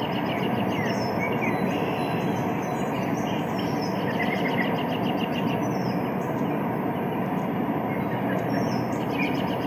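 White noise machine playing its nature track through its small speaker: a steady rushing hiss with birds twittering on and off above it.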